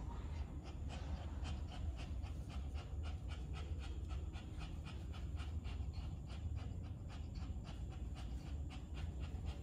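Sick nursing mother dog panting rapidly and evenly, about four breaths a second, over a steady low hum.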